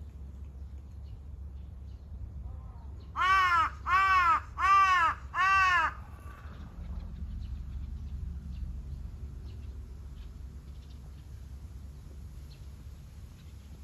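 A crow cawing four times in quick, even succession about three seconds in, each caw arching up and down in pitch.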